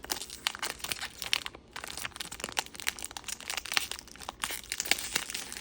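Foil wrapper of a Pokémon card booster pack crinkling as it is handled, with quick, irregular crackles.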